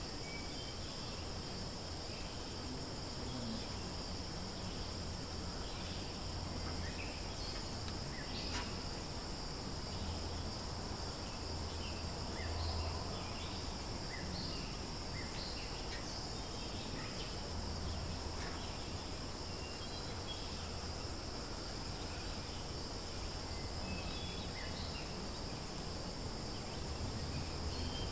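Steady outdoor insect chorus, a continuous high drone, with scattered short chirps and a low rumble underneath.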